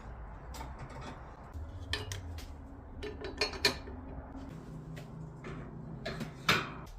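Scattered light metallic clinks and taps, with the loudest knock about six and a half seconds in, from tools and bicycle wheel parts being handled, over a low steady hum.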